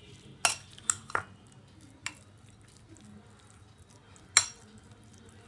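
Metal fork stirring a thick yogurt-and-spice marinade in a bowl, clinking sharply against the bowl several times. The loudest clink comes about four seconds in.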